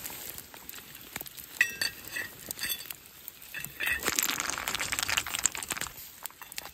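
Metal lid clinking and ringing against a steel camp pot several times, then about two seconds of loud hissing from the pot of pasta at a rolling boil over the campfire.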